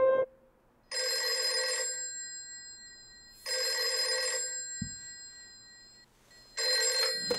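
Wall-mounted telephone ringing three times, each ring about a second long and spaced a couple of seconds apart; the third ring is cut short as the handset is lifted.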